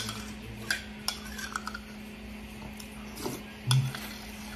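Metal spoon scraping and clinking against a ceramic plate while spooning up leftover sauce: a few sharp clicks and short ringing clinks. A low thump about three and a half seconds in.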